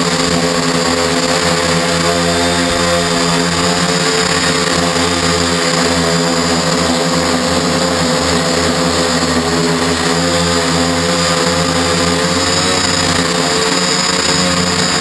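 Octocopter's eight electric motors and propellers running in flight, heard close up from on board: a steady, loud buzzing hum that wavers slightly in pitch.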